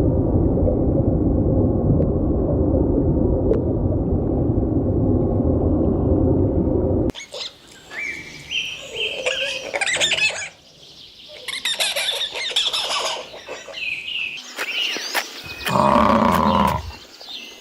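Animal calls. A dense, loud, low noise runs for about seven seconds and cuts off abruptly. It gives way to a mix of shorter, higher calls and chirps, with a louder, lower pitched call near the end.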